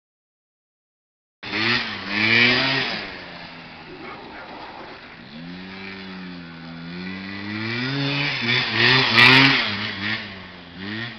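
Beta motorcycle's small engine revving up and down as it is held in a wheelie, pitch swinging with the throttle and loudest twice, near the start and near the end. It cuts in sharply after about a second and a half of dead silence.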